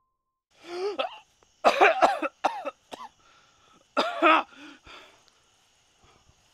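A man coughing in several harsh fits, with strained voiced gasps between them, loudest about two seconds in. A faint steady high chirring of crickets runs underneath.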